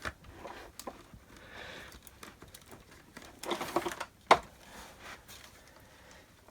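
Plastic parts of a vacuum cleaner being handled while the handle is fitted into the body: scattered light clicks and knocks, a short clatter about three and a half seconds in, then a single sharp click just after four seconds.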